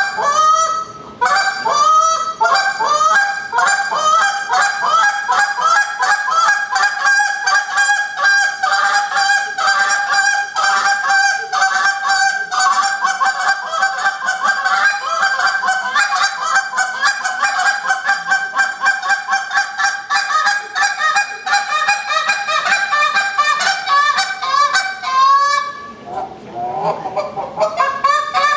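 Handheld goose call blown in a fast, continuous run of short honks and clucks, many notes a second, imitating Canada geese. Near the end there is a brief break, then the calling resumes.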